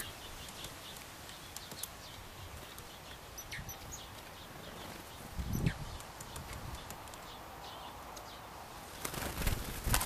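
Small birds chirping and calling in short, high notes, with a soft low thump about five and a half seconds in and a louder cluster of thumps near the end.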